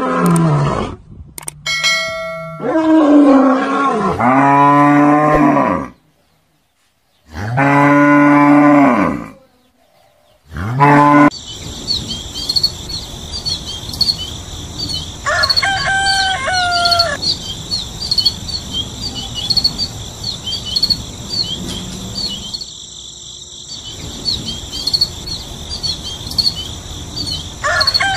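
Cattle mooing: several long, low calls in roughly the first ten seconds, with short silences between them. Then a steady chorus of chirping birds, with a longer bird call twice.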